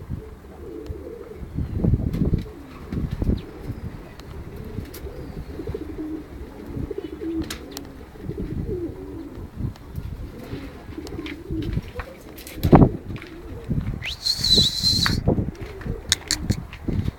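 Domestic pigeons cooing, with low, warbling coos overlapping throughout. There are scattered small clicks, and a brief high-pitched squeak about three-quarters of the way in.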